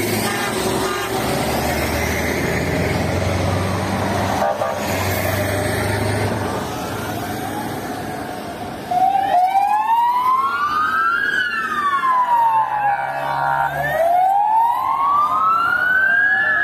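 Heavy vehicle engines and traffic rumbling past. About nine seconds in, a police siren starts a slow wail, rising and falling in pitch over roughly two and a half seconds each way, for about two full sweeps.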